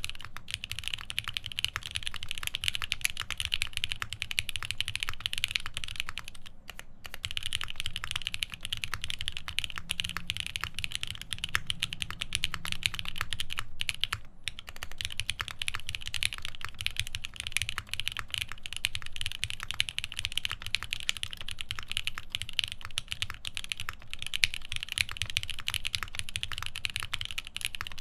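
Continuous typing on a Palmetto prototype mechanical keyboard with lubed Alpaca v2 linear switches, GMK keycaps and a half FR4 plate: a dense, fast run of keystroke clacks with brief pauses about six and a half and fourteen seconds in.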